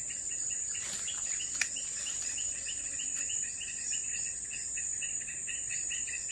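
Insects chirring steadily: a continuous high drone with a pulsed chirp repeating about four times a second. A couple of faint clicks come in about one and one-and-a-half seconds in.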